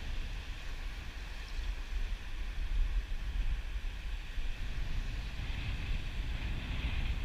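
Steady wind noise buffeting a head-mounted GoPro's microphone, over the hiss of waves breaking on a rocky shore.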